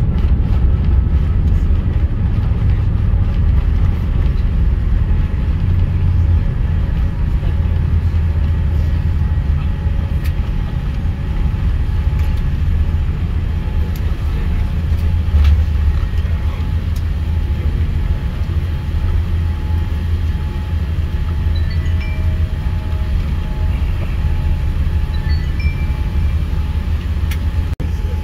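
Steady low rumble inside a jet airliner's cabin: engine and airflow noise on the arrival into the airport, with a few faint clicks.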